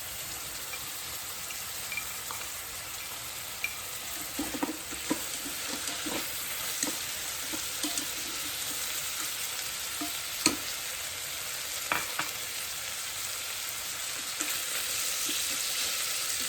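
Chopped vegetables sizzling in olive oil in an Instant Pot on sauté, a steady hiss. They are stirred, with a scattering of short clicks and knocks of the utensil against the pot, the sharpest about ten and twelve seconds in.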